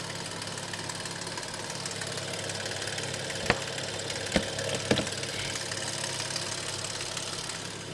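Audi S6 engine idling with a rattling clatter, a few sharp knocks standing out about halfway through. It is a clatter that the owner says keeps getting worse.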